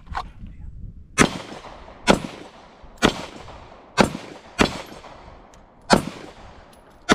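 Pistol fired seven times at an unhurried pace, roughly one shot a second with two closer together in the middle. Each shot has a short echoing tail.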